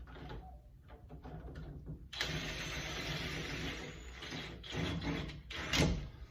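Cordless drill/driver running for about three seconds, then two short bursts, driving the screws of a new door lockset home.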